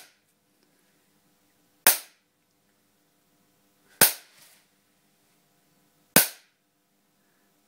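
Sharp bangs of a high-voltage capacitor discharging through a spark gap into water in a plastic cup, an electrohydraulic shock (Yutkin effect) strong enough to make the water jump. Three single cracks about two seconds apart, each with a short tail, from a larger capacitor giving a more powerful spark.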